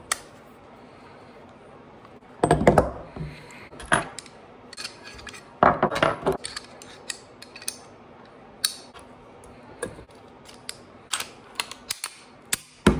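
A semi-automatic pistol being field-stripped and reassembled by hand on a wooden table: irregular metallic clicks and clacks of the slide, barrel and recoil spring being worked apart and set down. There are louder clatters about two and a half and six seconds in, and a sharp clack at the very end as the slide goes back onto the frame.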